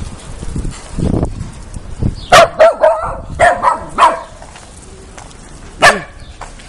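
Shetland sheepdog puppy barking in a quick run of about seven high-pitched yaps, then one more a couple of seconds later. A dull low thud comes about a second in.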